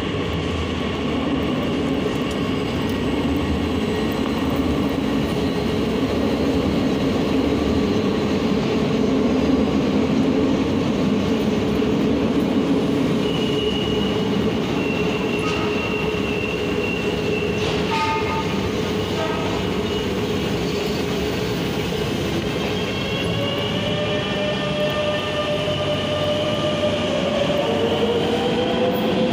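Madrid Metro electric train in an underground station: a steady rumble throughout, with a high steady tone for a few seconds around the middle and a brief clatter just after it. Near the end the traction motor whine rises in pitch as the train accelerates away.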